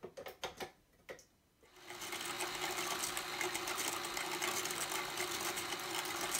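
A few clicks and knocks as the flat paddle is fitted to a KitchenAid Artisan stand mixer. About two seconds in, the mixer starts and runs at a steady speed with a steady motor hum, its paddle churning cream, half and half and sugar in the steel bowl.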